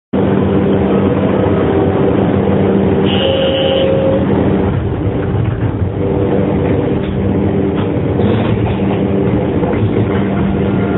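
Astram Line 6000-series rubber-tyred guideway train running, its shunt-field chopper-controlled traction motors giving a steady low hum over the running noise, with a brief higher tone about three seconds in. The motor sound is abnormal, low-pitched rather than the usual high whine, which marks this car as a noisy one.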